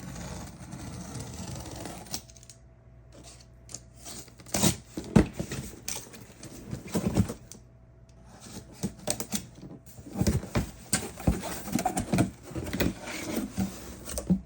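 Tools being unpacked from a box: a steady scratchy rustle of packaging for about the first two seconds, then irregular clicks, knocks and rattles as the packaging and hand tools are handled.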